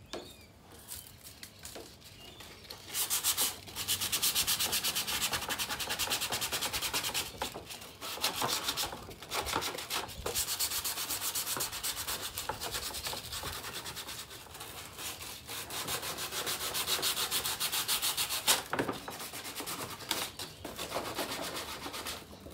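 Sandpaper scuffing the plastic bumper around the mesh opening in rapid back-and-forth strokes. The strokes start about three seconds in and come in runs of a few seconds with short pauses. The surface is being scored so the mesh adhesive will grip.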